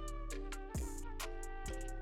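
Background music with a steady beat: drum hits under sustained instrument notes.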